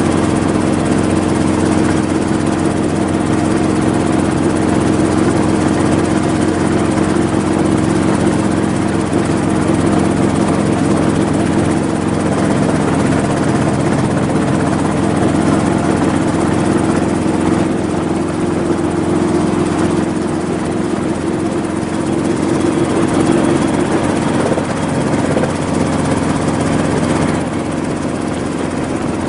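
Safari kit helicopter's piston engine and rotor running with a steady, even drone, easing slightly in level about 18 seconds in and again near the end.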